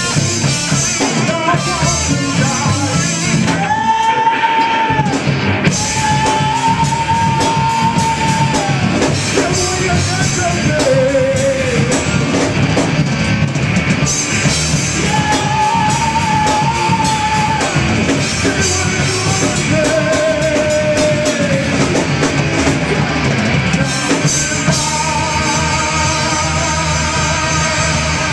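Live rock band playing: electric guitars and a drum kit under a singer who holds several long, steady notes.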